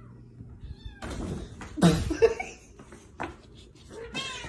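A kitten mewing in short, high cries, with rustling and scuffling around it and a louder scuffle about two seconds in.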